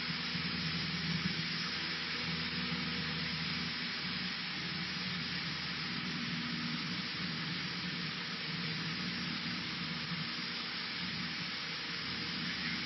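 Cessna 152's four-cylinder Lycoming engine and propeller running at a steady power setting, heard inside the cockpit with a steady rush of air noise over the engine drone.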